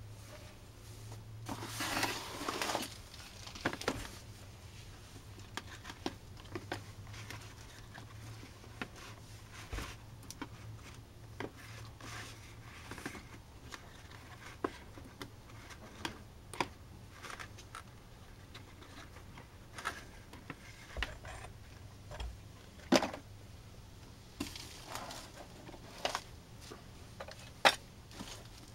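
Cast orgonite pucks and their moulds being handled: scattered light clicks and knocks of hard resin pieces against silicone and a metal tray, with a brief rustle about two seconds in. A low steady hum sits underneath for the first half.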